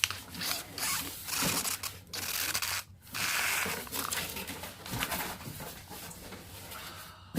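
Packaging rustling and scraping as a new printer is unpacked and handled: several rough stretches of rubbing, each about a second long, with short pauses between them.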